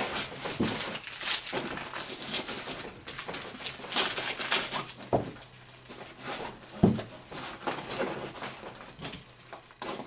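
Rustling and handling noise of small items being stuffed into the pockets of a nylon shoulder bag, with two dull knocks about five and seven seconds in.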